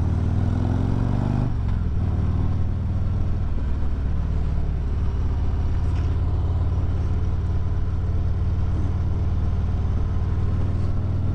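Harley-Davidson Road Glide V-twin running under way. The engine note rises for the first second or so, then holds steady at cruising speed.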